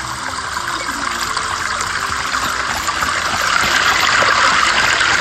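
Steady rushing hiss like running water, swelling louder about three seconds in.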